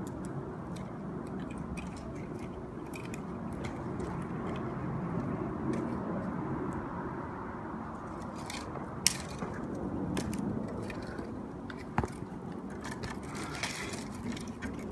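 Bamboo fire crackling over a steady low rush, with scattered small pops and a sharp crack about nine seconds in and another about twelve seconds in.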